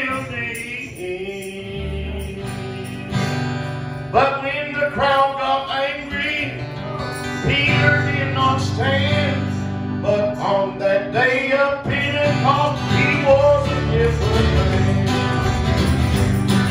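A man singing a gospel song into a handheld microphone over instrumental accompaniment.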